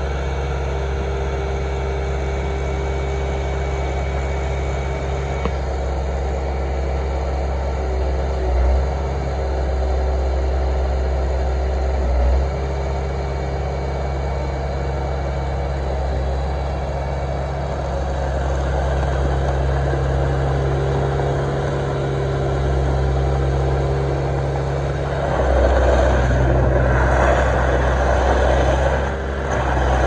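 Bobcat S300 skid steer loader's turbo diesel engine running steadily while the machine works its bucket and drives over gravel, with two brief swells in the engine sound. About 25 seconds in it grows louder and rougher.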